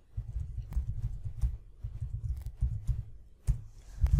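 Typing on a computer keyboard: quick runs of keystroke clicks with dull thumps, broken by brief pauses.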